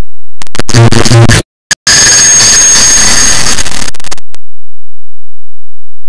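A clock-tick sound effect repeated and sped up until it becomes harsh, distorted digital noise at full loudness. It starts with a buzzing burst of about a second, then after a brief gap comes about two seconds of hissing noise that cuts off suddenly.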